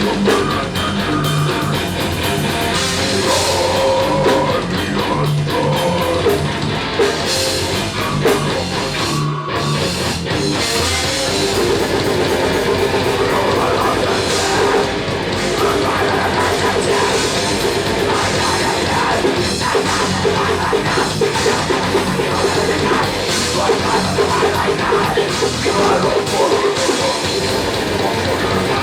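Loud rock music in a heavy-metal style, with drum kit and guitar.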